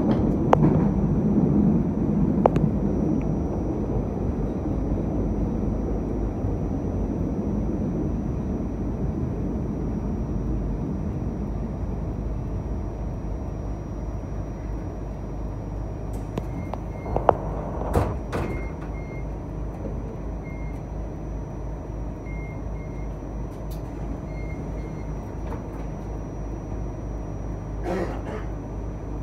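Cleveland RTA Green Line light-rail car heard from inside: a rumbling running noise that fades over the first few seconds to a steadier, lower hum, with a faint high electrical whine throughout. A few sharp clicks come about halfway through and again near the end.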